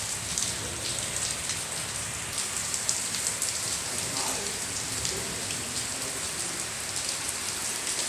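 Steady rain falling, with many individual drops ticking sharply among the even hiss of the downpour.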